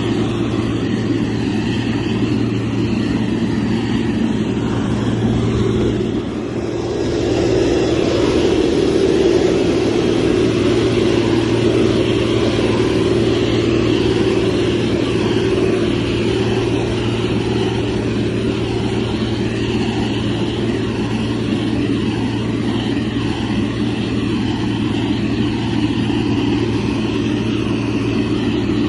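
Heavy construction machine's diesel engine running steadily under load. It dips briefly about six seconds in, then picks up again and keeps running slightly louder.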